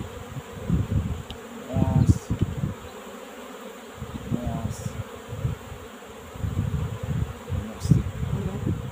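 Honeybees buzzing in flight around the hive entrances, a dense, constant hum that comes and goes in loudness, with now and then a single bee passing close in a short rising buzz. It is the busy flight of foragers bringing in pollen at the start of the spring flow.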